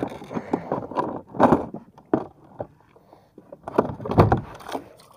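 Irregular knocks, scrapes and rustles of gear being handled aboard a fishing kayak. The loudest is a dull thump about four seconds in.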